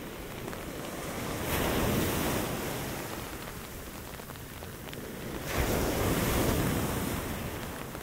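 Storm surf on a Pacific beach: two waves break and wash up, one about a second and a half in and another, starting more suddenly, about five and a half seconds in. Each swells loud and then fades back into a steady bed of wind and surf noise.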